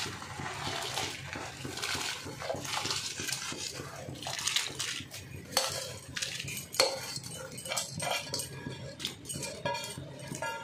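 Soaked rice is tipped into a pot of boiling water and stirred with a metal spoon: the water bubbles while the spoon scrapes and clinks against the pot several times.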